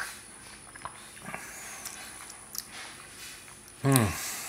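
A person drinking tea from a small cup: faint mouth and swallowing sounds, then near the end a short "mm" of appreciation that falls in pitch.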